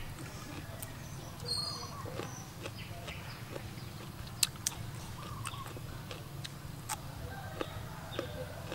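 Faint bird chirps and scattered sharp clicks over a low steady hum.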